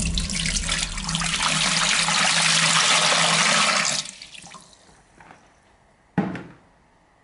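A stream of tap water splashing onto the bottom of an empty glass aquarium, stopping abruptly about four seconds in. A few faint drips follow, and one sharp knock sounds near the end.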